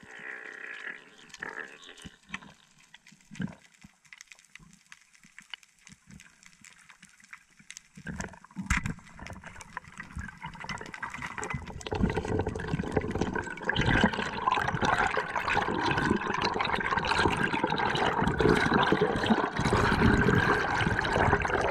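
Underwater sound through a diving camera: faint clicks and crackles, and a sharp snap about nine seconds in as the band-powered speargun fires. From about twelve seconds on there is loud, continuous bubbling and rushing water as exhaled bubbles stream past on the ascent with the speared fish.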